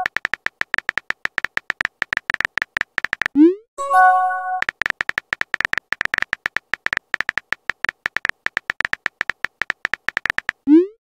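Rapid keyboard-typing click sound effects from a texting-story animation, tapping out a message letter by letter. About three and a half seconds in, a short rising pop and a brief chime mark a message being sent, and then the typing clicks resume. Another rising pop comes near the end as the next message is sent.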